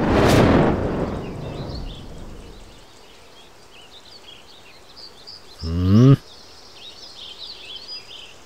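A loud rushing whoosh that fades over about two seconds, then a flock of birds chirping. About six seconds in comes a short, loud, rising call.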